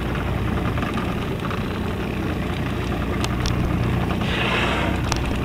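Boat engine idling, a steady low hum. About four seconds in, a brief rushing hiss sounds over it.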